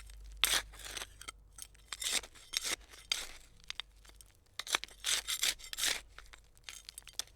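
Hand trowel digging, a series of short, irregular scraping strokes with brief pauses between bursts.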